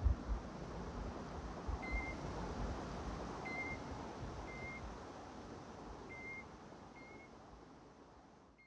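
Water splashing and trickling in a stone garden fountain, a steady rush that slowly fades away. About every one to two seconds a short, high, level peep sounds, about six in all.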